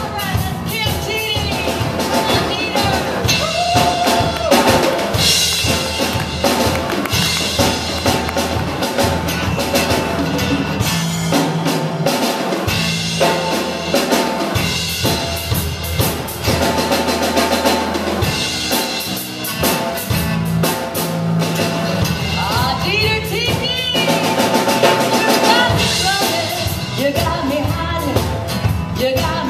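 A live band playing an instrumental passage: electric bass and acoustic guitar over a drum kit keeping a steady beat.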